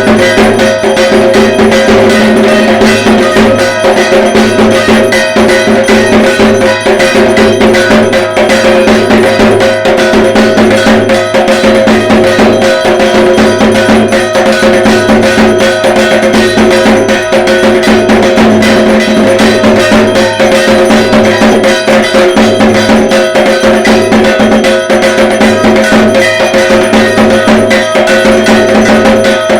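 Dhak, the Bengali barrel drum of Durga Puja, beaten in a fast, unbroken rhythm of dense rapid strokes over steady ringing tones.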